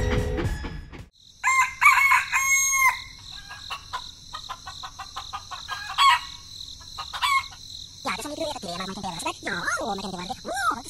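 Chickens calling in short bursts, with a rooster-like crow about two seconds in and more clucking near the end, over a steady high hiss.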